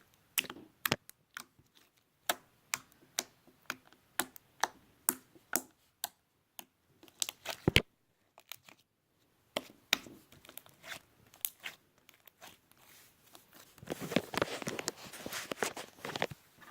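Creamy fluffy slime being worked, giving off irregular sharp wet pops, a short lull a little past the middle, then a denser run of wet squelching near the end.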